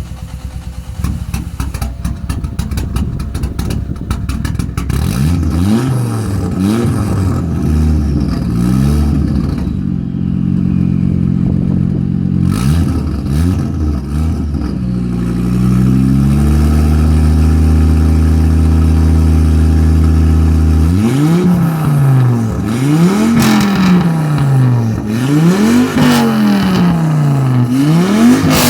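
Ford Focus with a newly built 345 bhp race engine, idling unevenly at first, then revved in repeated blips. It is held at steady high revs for about five seconds, then blipped quickly several times again near the end.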